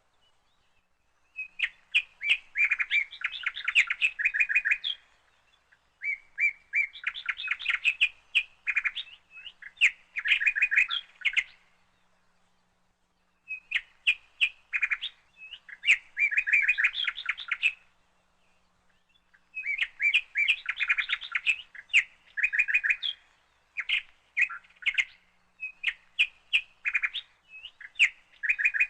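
Bird chirping in rapid, chattering runs of quick notes, each run lasting a few seconds, with short pauses between runs.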